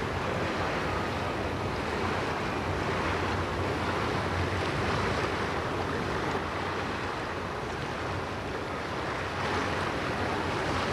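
Steady wind noise and river water, with a low steady engine hum from a passing motorboat underneath.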